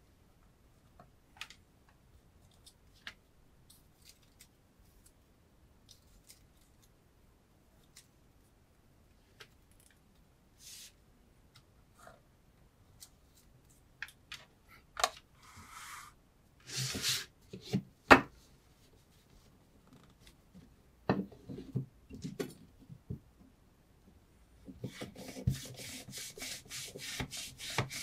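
Scattered light clicks and taps of a kitchen knife being handled, a few short scraping cuts, then a quick run of repeated scraping strokes, about four a second, near the end.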